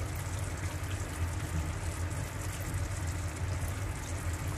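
Saffron sugar syrup boiling in a frying pan, a steady fine bubbling and hiss, with the syrup at one-and-a-half-string consistency and ready.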